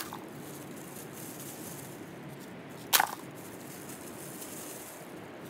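Bamboo shoots dropped onto a wooden bench: a short, sharp clatter at the start and another about three seconds in, over a steady background hiss.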